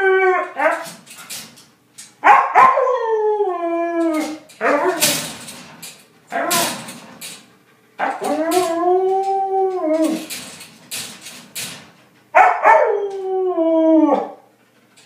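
Siberian husky howling: a run of drawn-out calls, most sliding down in pitch, one rising then falling about eight seconds in, with short pauses between them.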